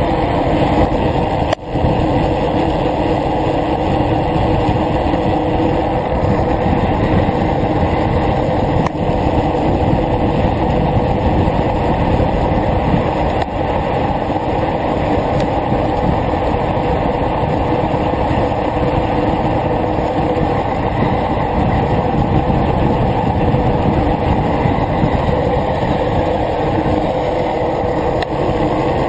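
Steady wind rush over the microphone of a handlebar-mounted camera on a bicycle coasting downhill at 30 to 50 km/h, with a brief drop about one and a half seconds in.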